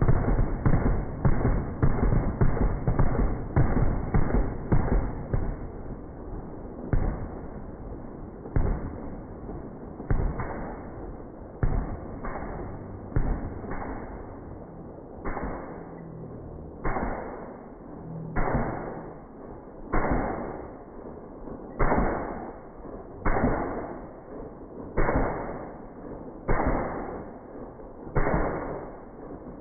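Slowed-down gunshots from an M2 .50 BMG heavy machine gun firing, each shot stretched into a drawn-out boom with a long fading tail. The shots overlap densely for the first few seconds, then come singly about every one and a half seconds.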